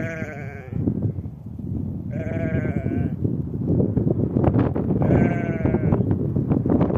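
Sheep bleating three times, each a wavering call of about a second, over a loud, gusty rumble of wind on the microphone.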